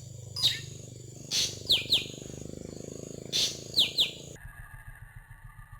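Drongo calling: sharp, downward-sweeping whistled notes, single or in quick runs of two or three, over a steady low hum. The calls stop abruptly about four seconds in.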